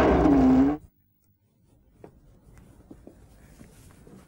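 The end of a voice cut off abruptly under a second in, then a moment of dead silence. After that comes faint quiet room tone with a few soft clicks and rustles.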